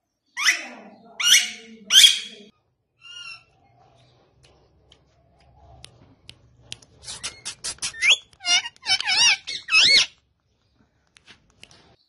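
Indian ringneck parakeet calling: three loud rising squawks in the first two seconds and a fainter one soon after, then, after a pause, a run of quick clicks and warbling, wavering notes from about seven to ten seconds in.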